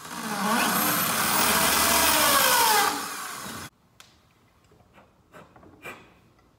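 Corded electric drill running into the end of a wooden hiking staff, its speed rising and falling, then cutting off suddenly about three and a half seconds in. A few light knocks follow.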